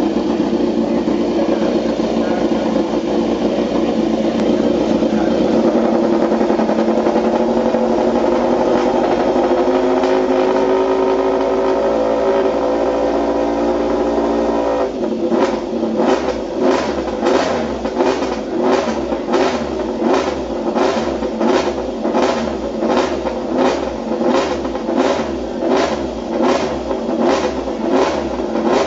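MotoGP racing motorcycle engine and exhaust running at a steady raised idle, its pitch creeping slowly upward. About halfway through it switches to repeated throttle blips, about two a second, evenly spaced.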